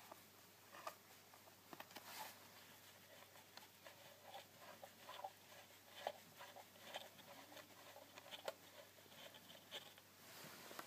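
Faint small clicks, taps and scrapes of a coax cable's F-connector being handled and fitted onto the jack of a Netgear MoCA adapter, with one sharper click about six seconds in.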